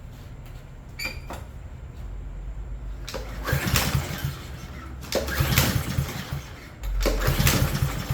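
Push mower's recoil starter pulled three times, the engine cranking briefly each time without catching. It gets no spark because the too-long replacement handle cable doesn't pull the safety back far enough.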